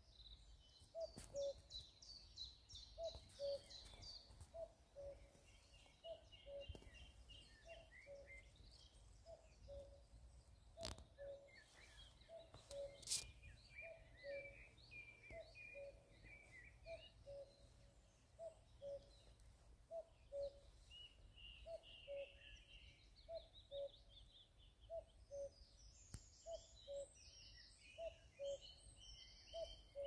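Common cuckoo calling its two-note cuck-oo over and over at a steady pace, each call a higher note dropping to a lower one. Smaller songbirds twitter and sing higher up around it, and there are a couple of sharp clicks about halfway through.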